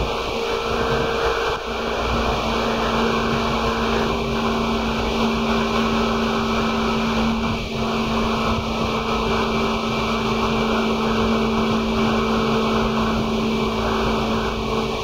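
Loud running noise of a Seibu 2000 series electric train (set 2055F) under way: wheels on rail with a steady motor hum, its upper tone stepping slightly lower a few times.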